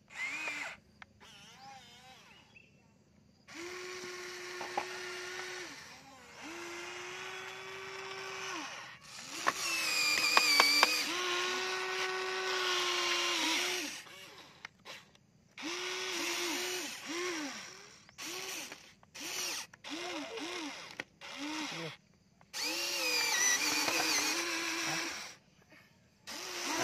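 Small electric motors of a remote-control toy excavator whining in stops and starts, the pitch dipping and rising as each motor spins up and slows while the arm and bucket move. A few sharp clacks of rocks against the bucket about ten seconds in.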